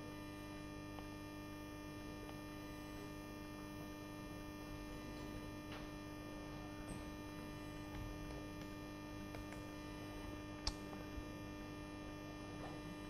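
Steady low electrical mains hum, with a couple of faint sharp clicks near the end.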